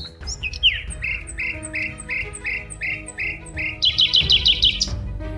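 A bird calling: a steady series of short chirps about three a second, then a quicker, higher trill of notes about four seconds in, over soft background music.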